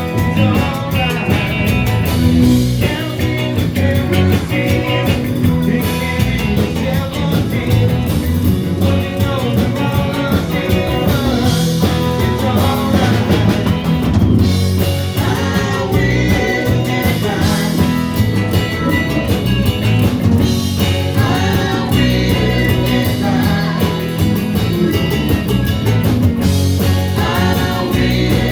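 A rock band playing: guitars, bass and drum kit with a steady beat, and a singer's voice at times.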